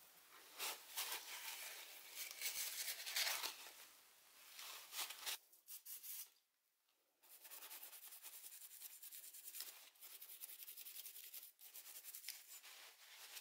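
Rubbing and scraping noises cut off suddenly about five seconds in. After a second of near silence, a toothbrush scrubs a red drill part wet with degreaser in quick, even strokes.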